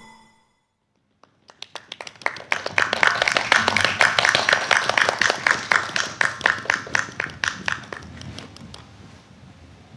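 A small group clapping hands after a song ends: after a second of silence the claps start scattered, build into steady applause, and die away near the end.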